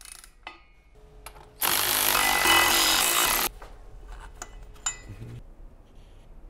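Cordless power tool running in one burst of about two seconds, loosening the bolts of a drive shaft flex disc. A few light clicks and taps follow.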